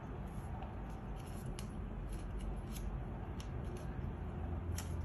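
A square of orange origami paper being folded and creased by hand, with a few short, sharp crackles of the paper over a low steady rumble.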